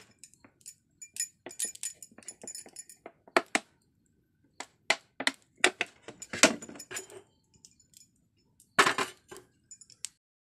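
Metal kitchen utensils clinking and knocking together as they are handled, in an irregular run of sharp clinks. The loudest clatters come about two-thirds of the way in and again near the end, and the sound cuts off suddenly.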